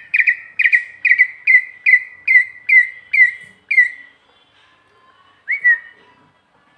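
Coppersmith barbet calling: a run of about nine short, hollow repeated notes, about two a second and gradually slowing, which stops about four seconds in; one more note follows near the end.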